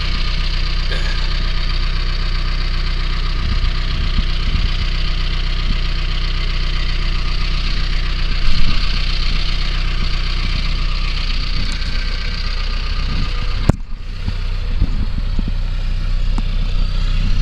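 A vehicle engine running steadily at a low, even speed, with a single louder thump about eight and a half seconds in and a brief drop-out a little before the end.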